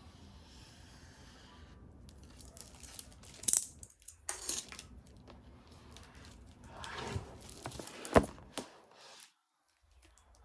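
Packaging of an Apple Magic Keyboard box being torn and crinkled by hand, with two sharp knocks against the box.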